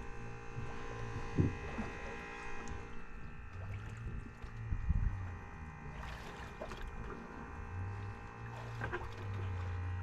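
Steady mechanical hum and whine from the fishing boat's motor or onboard machinery, with a low throb that comes and goes and a few scattered knocks.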